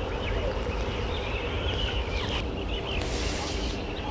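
Outdoor ambience: a steady low rumble under high, twittering chirps, with a brief hiss about three seconds in.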